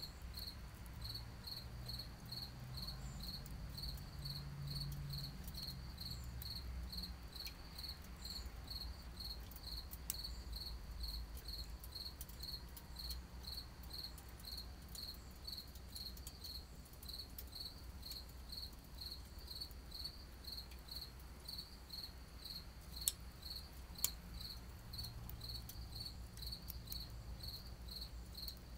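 A cricket chirping steadily, about two high chirps a second, over a low rumble. Near the end, two sharp pops from the burning twigs in the can stove stand out.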